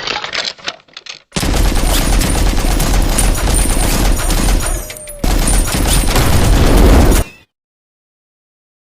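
A loud, dense rattle of rapid sharp bangs, like a gunfire sound effect. It briefly dips about five seconds in and cuts off suddenly near the end.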